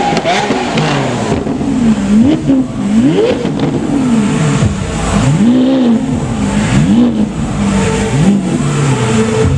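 A performance car engine revved in repeated blips, its pitch climbing and dropping about once a second, then holding steadier near the end.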